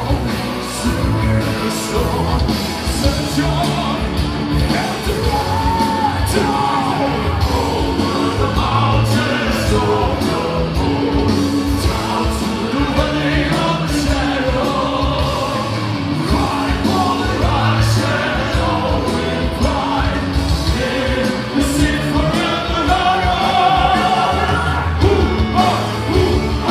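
Symphonic metal band playing live, with drums, guitars and keyboards under a sung vocal line.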